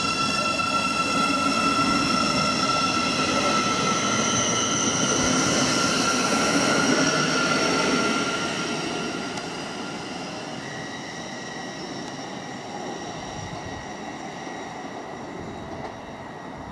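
Class 717 Desiro City electric multiple unit running past and away, its electric traction drive giving a whine of several high, steady tones over the rumble of the wheels. The sound is loud for about eight seconds, then fades as the train draws off.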